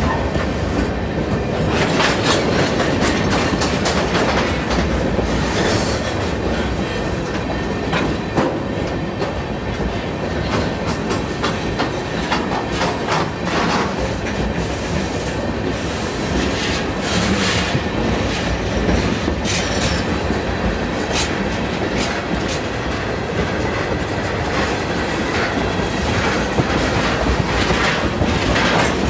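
Freight train tank cars rolling past close by, a steady rumble of wheels with repeated clacks as the trucks cross rail joints. A thin high-pitched wheel squeal comes in around the middle for a few seconds.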